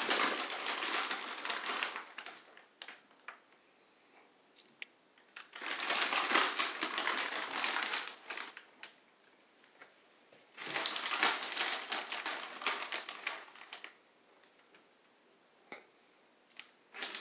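Plastic bag of shredded cheese crinkling as it is handled and shaken, in three bursts of a few seconds each with quiet gaps between.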